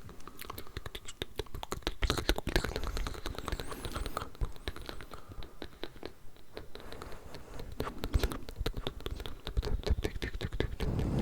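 Layered ASMR mouth sounds: dense, irregular wet clicks and smacks from several overlaid tracks, close to the microphone.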